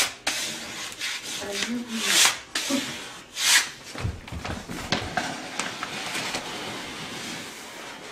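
Paper backing being peeled off a large vinyl wall graphic while hands rub the vinyl down onto the wall: rustling and crinkling paper, with two louder rustles about two and three and a half seconds in.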